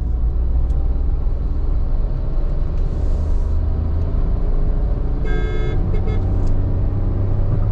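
Tata Altroz iTurbo's 1.2-litre turbocharged three-cylinder petrol engine under hard acceleration in third gear, its revs climbing steadily as the car pulls from about 50 km/h toward 120 km/h, heard from inside the cabin.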